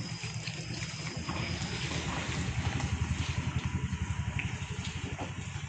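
A motor vehicle's engine idling close by: a steady low rumble that pulses quickly, with faint scattered clicks over it.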